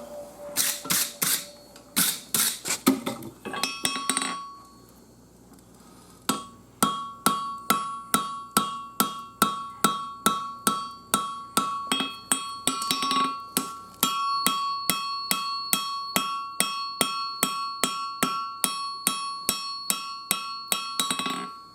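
Blacksmith's hammer striking hot 5160 steel on an anvil while refining a knife blade by hand. A few blows come first, then a short pause, then steady strikes about two a second, each followed by a clear metallic ring.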